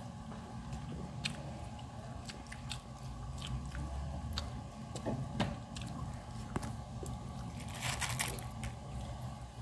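Close-up eating sounds: a person chewing grilled chicken and rice eaten by hand, with scattered light clicks and a brief rustle about eight seconds in.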